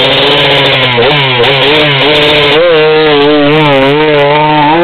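KTM enduro motorcycle engine revving hard and close. The pitch climbs and then rises and falls over and over as the throttle is worked.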